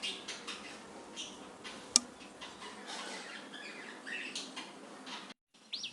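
Hands mixing a wet spice paste with oil, irregular squishing and crackling sounds, with one sharp click about two seconds in.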